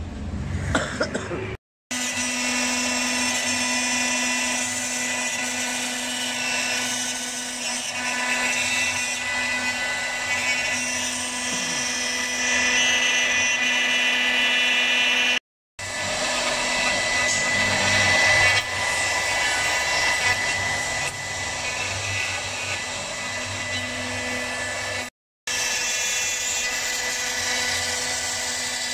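CNC router spindle running with a steady high whine while its small straight bit carves letters into a wooden board, with a rough cutting hiss over it. The sound drops out completely for an instant three times.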